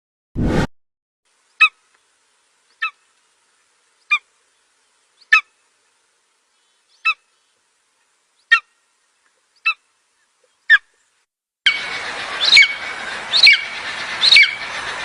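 Golden eagle calling: a run of short, sharp yelps about one a second. Near the end the calls come over a steady hiss. A brief low thump comes just before the first call.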